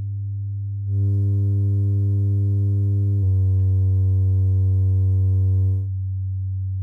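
Low bass test tone near 100 Hz played through a portable Bluetooth speaker, with a row of overtones above it. It steps up louder about a second in, drops slightly in pitch about three seconds in, and falls back quieter near six seconds.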